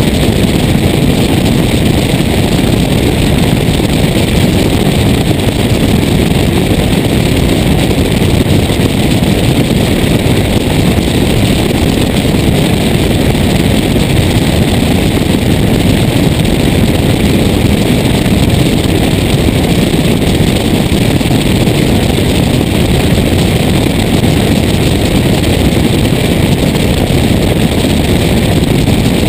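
Cessna 172's piston engine and propeller running steadily in cruise, heard as a loud, unbroken drone mixed with wind rushing over a camera mounted outside under the wing.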